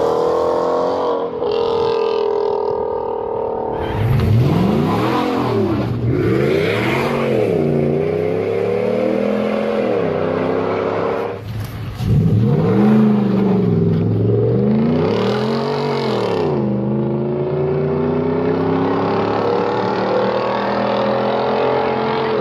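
Car engines revving in quick rises and falls as vehicles drive past, in two bouts: about four seconds in, and again about twelve seconds in as a Ford F-150 pickup goes by. A steady engine drone holds between and after the revs.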